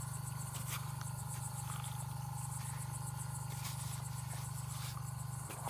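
Night insect chorus: crickets chirring in rapid high pulses over steady mid-pitched trills, with a steady low hum underneath.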